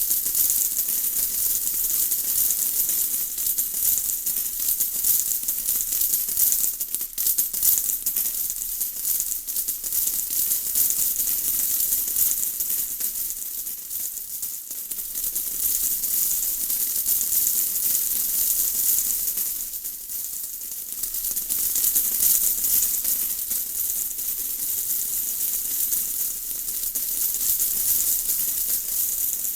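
Steady rain: a dense, fine patter of drops, high and hissy, easing off briefly a few times before filling back in.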